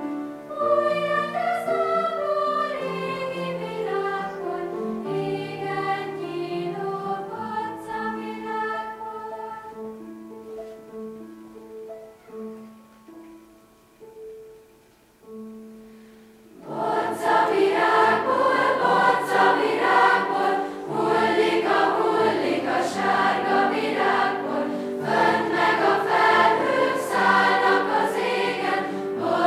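Children's choir singing in many voices. After a softer opening the music thins to a quiet passage, then the full choir comes in loudly about 17 seconds in and keeps singing.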